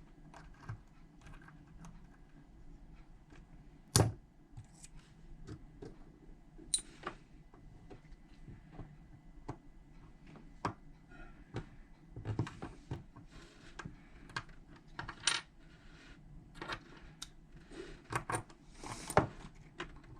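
Small metal parts of a Smart Fortwo rear hatch lock clicking and clinking as they are handled and fitted together, in scattered sharp clicks with one loud clack about four seconds in.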